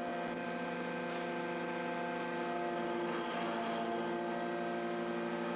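Deep-drawing press running with a steady machine hum of several held tones as its punch draws a metal tube through the die.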